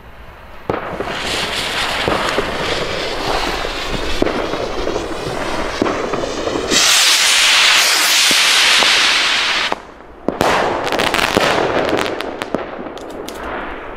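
Two skyrockets lit together: the fuses sputter and hiss for several seconds, then a loud rushing hiss as the rockets lift off, and from about ten seconds in a run of sharp pops and crackling as they burst overhead.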